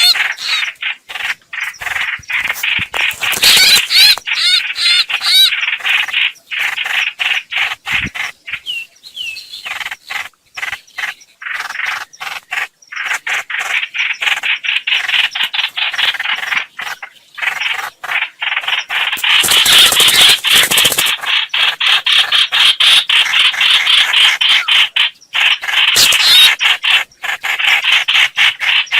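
Bird calls of the small bird known in Vietnam as 'hoạch hoạch', used as a trapping lure: fast, rapidly repeated harsh chirping notes in long runs, pausing briefly now and then.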